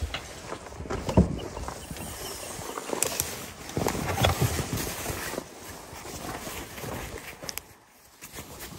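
Gear being handled in a packed car: bags and fabric rustling, with a few sharp clicks and dull bumps.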